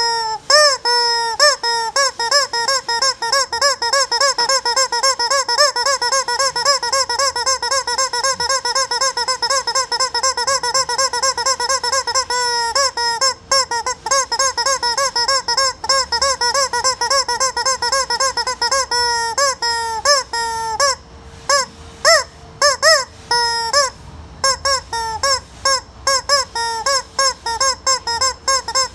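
Squeaky rubber chicken toy squeezed over and over in quick succession, each squeeze a short honking squawk. A few squeezes are held into longer, steadier squawks.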